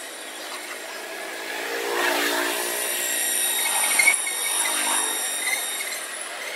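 A motor vehicle going by: its engine hum swells about two seconds in and eases off toward the end, with thin steady high-pitched tones over it and a couple of sharp clicks about four seconds in.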